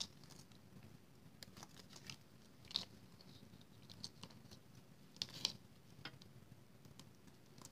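Faint paper handling: light rustles and a few sharp little clicks as small foam adhesive squares are pulled from their backing and pressed onto the corners of a cardstock panel, with the most distinct clicks about three seconds in and around five seconds in.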